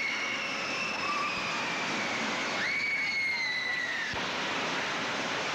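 Steady noisy din around a spinning indoor kiddie ride, cut through by two long high-pitched squeals. Each squeal starts with a quick rise and slides slowly down in pitch; the second stops abruptly about four seconds in.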